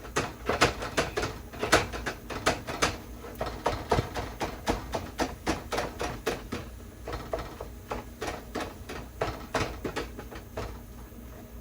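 A kitchen utensil striking and scraping a pan again and again, several sharp taps a second, chopping up ground beef in the pan.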